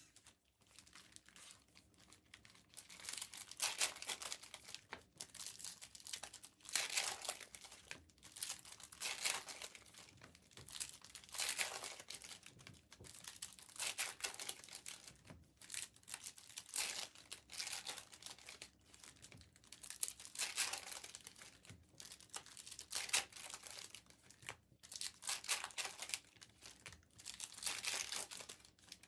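Foil trading-card pack wrappers being torn open and crinkled by hand, in repeated crackling bursts every second or two.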